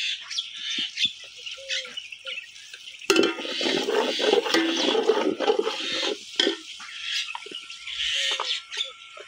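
A steel ladle stirring fried onions and spices in ghee inside an aluminium pot, with frying sounds. The stirring starts about three seconds in and stops after about three seconds.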